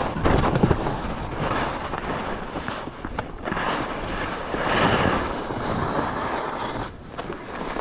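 Skis scraping and carving over packed snow, swelling with each turn every second or so, with wind rushing over the microphone.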